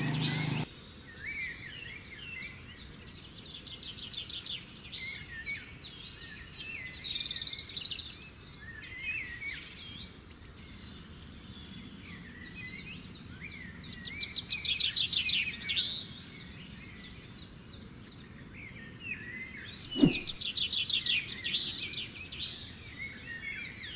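Several songbirds chirping and singing, with short whistled notes and bursts of fast trills. A single dull thump about twenty seconds in.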